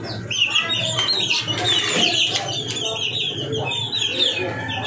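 A flock of young chicks peeping continuously, many short high chirps overlapping one another.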